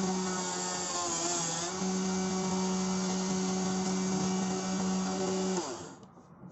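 775 DC motor of a homemade flexible-shaft rotary grinder running at high speed with a steady whine. About a second and a half in, its pitch sags briefly and recovers. Near the end it cuts off and spins down.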